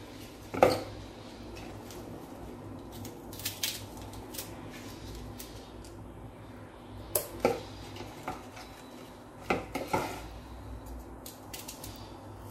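Kitchen utensils and dishes clinking and knocking during food preparation: several sharp clacks, the loudest about half a second in, with a pair near the middle and another pair near the end, over a steady low hum.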